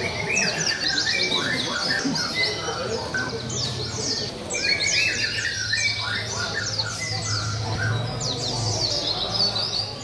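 Many caged songbirds singing at once on the contest poles: a dense, unbroken chorus of rapid chirps and short trilling phrases.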